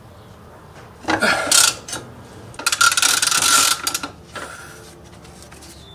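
Ratchet wrench clicking in two quick bursts, the first under a second long and the second about a second and a half, with a brief third near the end.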